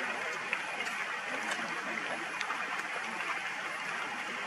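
Rain falling steadily: an even hiss with a few sharp drip ticks scattered through it.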